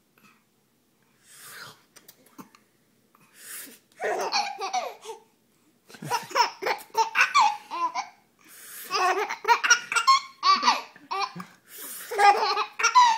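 A baby laughing in several long bouts, starting about four seconds in after a quiet start.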